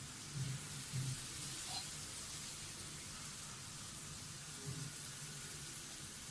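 Banana fritter batter frying in hot oil: a steady sizzle.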